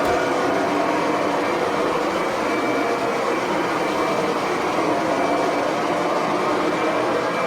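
Kirby Sentria upright vacuum cleaner's motor running steadily at full power, with its self-propelled drive engaged.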